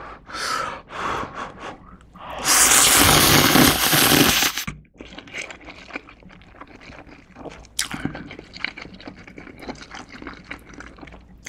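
A person slurping thick instant ramen noodles in one long, loud slurp a few seconds in, then chewing them with many small soft clicks and smacks.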